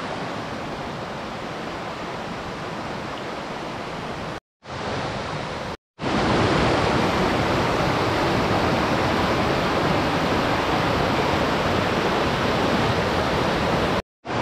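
Steady rush of flowing river or stream water, broken by brief silent gaps twice around the middle and once near the end, and louder from about halfway on.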